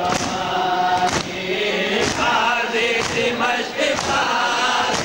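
Crowd of Shia mourners chanting a noha in chorus while doing matam: their palms strike their chests together about once a second, a sharp beat under the chanting.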